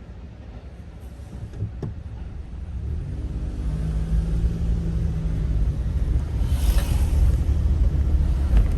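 Low rumble of a Shimabara Railway diesel railcar at the level crossing, growing louder over the first few seconds, with a steady hum near the middle and a brief hissing swell about seven seconds in.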